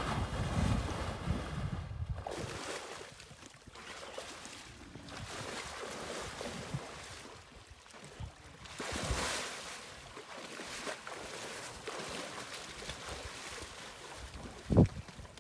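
Wind buffeting the microphone, heaviest in the first couple of seconds, over the scuffling of a young African elephant digging at a sandy bank and throwing sand and dust with its trunk. A single sharp thump comes near the end.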